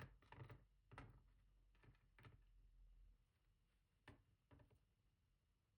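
Faint, scattered clicks and taps of small lock parts being handled and set down on a work surface: about half a dozen in the first two and a half seconds, then two more about four seconds in.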